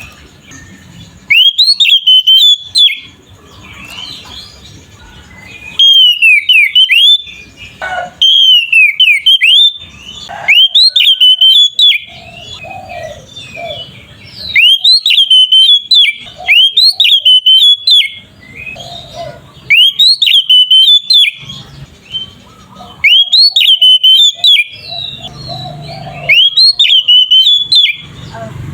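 Oriental magpie-robin singing in loud, repeated bursts of rapid, rising whistled notes. Each phrase lasts one to two seconds, with short pauses between them. This is the continuous 'ngeplong' song of a male in full voice.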